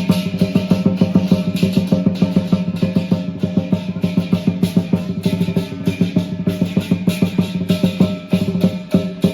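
Lion dance drumming: the big lion drum played with cymbals in a fast, steady beat of several strikes a second, with ringing between the strokes.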